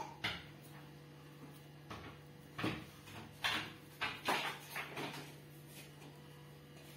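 Hands scooping and shaping mashed cassava in a plastic bowl: a string of short scrapes and knocks against the bowl, bunched between about two and six seconds in, over a low steady hum.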